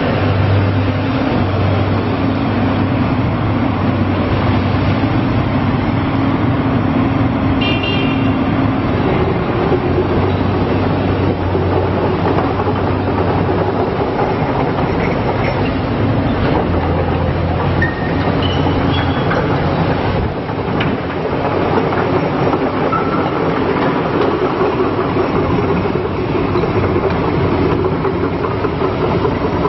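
Diesel engine and hydraulics of a Volvo EC210BLC tracked excavator running steadily under working load. The engine note shifts now and then as the load changes.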